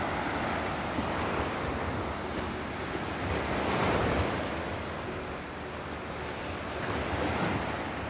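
Surf breaking on a sandy beach, a steady wash of waves that swells about halfway through, with wind rumbling on the microphone.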